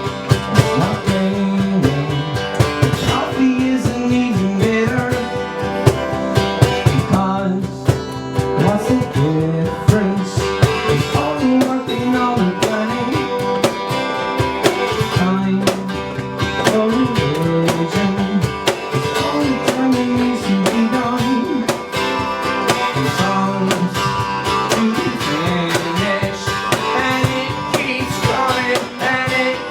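Live band music led by guitar, with a gliding melody line over steady held notes and a beat.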